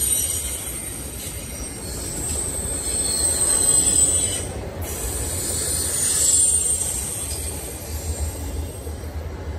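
Intermodal freight train's container and trailer cars rolling past: steady low rumble of the wheels with a high-pitched wheel squeal that swells about four seconds in and again about six seconds in, then eases.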